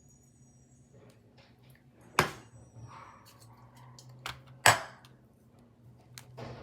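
Two sharp clacks of hard objects knocking, about two and a half seconds apart, with lighter clicks and taps between them over a faint steady hum.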